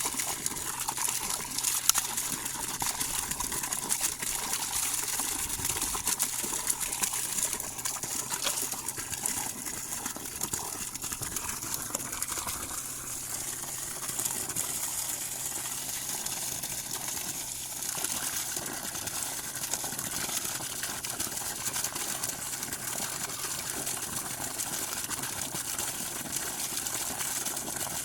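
Water running in a steady rush from a leaking pipe stub-out, with a faint low hum underneath.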